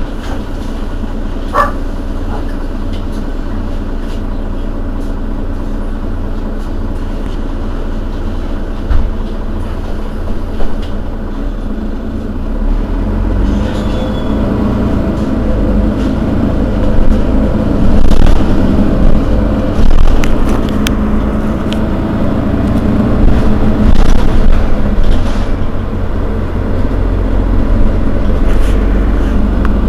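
Mercedes-Benz Citaro facelift city bus engine running steadily at first. About halfway through it grows louder and fuller, with the level rising and falling, as the bus pulls away and drives on.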